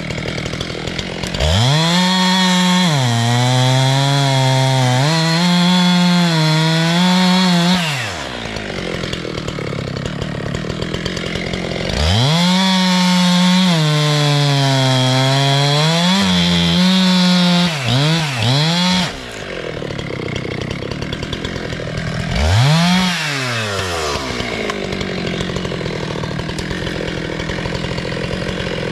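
Two-stroke chainsaw revving up and cutting through wood, its pitch sagging and recovering under load, then falling back to idle. It makes two long cuts of six to seven seconds each, with a few quick blips at the end of the second, and one short rev near the end.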